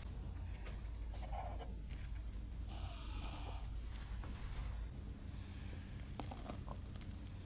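A teaspoon of baking powder tipped into a glass bowl of flour: a soft, breathy rustle about three seconds in and a few small clicks of the measuring spoon near the end, over a steady low hum.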